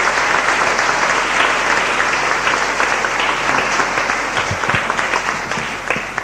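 Congregation applauding, a steady wash of many hands clapping that slowly thins and fades toward the end.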